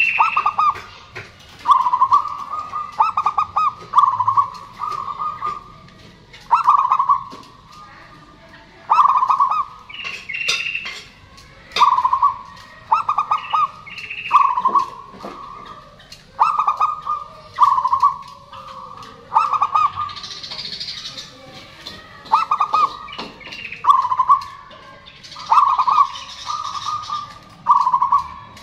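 Zebra dove (perkutut) cooing over and over: short, rattling, stuttered coos, one after another every second or two. Twice in the second half a higher, hazier sound rises above the coos.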